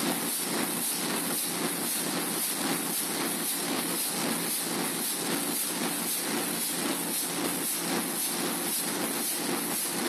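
The 1933 Burmeister & Wain diesel engine of the H.C. Ørsted power station running: a steady mechanical din with an even, rapid pulse and a high hiss.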